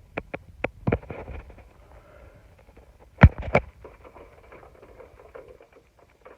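Handling noises: a quick run of light clicks and knocks, then a sharp loud knock about three seconds in, followed by a second knock a moment later.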